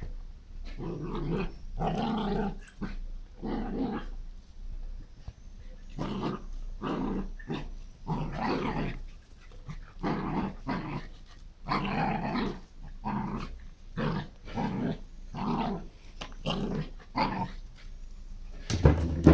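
Small black-and-white dog growling and yapping in short repeated bursts, roughly one a second, with a brief pause partway through. A loud thump near the end.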